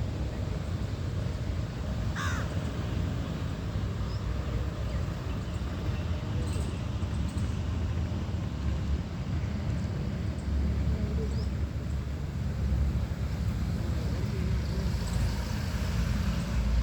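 Crow cawing once, clearly, about two seconds in, with a few fainter calls later, over a steady low rumble.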